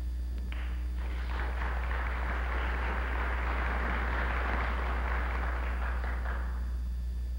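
Audience applause from a crowded banquet hall, building over the first second or so, holding steady, then dying away about a second before the end. A steady low hum runs underneath.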